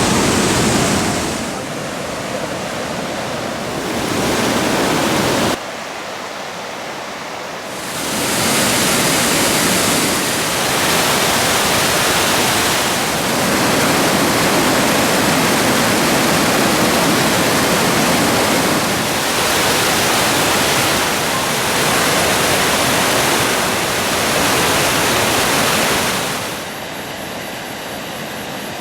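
Fukiware Falls, a broad waterfall 7 m high and 30 m wide, rushing steadily as a dense wash of water noise. The level drops and rises abruptly a few times: a drop about five and a half seconds in, back up about two seconds later, and down again near the end.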